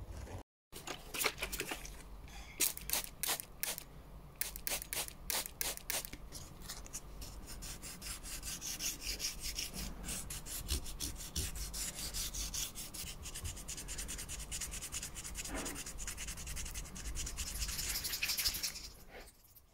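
Wet sandpaper rubbed by hand over the painted handle of an old steel tailor's scissor. It starts as separate scraping strokes, then speeds up into continuous quick back-and-forth scrubbing, which fades out near the end.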